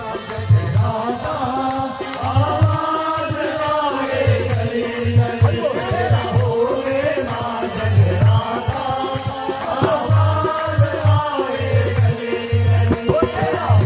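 Devotional jagrata bhajan music: a gliding melody over a repeating low drum beat, with a shaker-like rattle running throughout.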